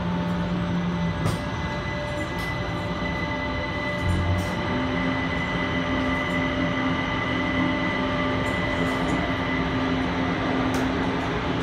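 Kaohsiung MRT Red Line electric train running into the station: a steady rumble with the electric drive's whining tones, one dropping out and a lower one coming in about four and a half seconds in.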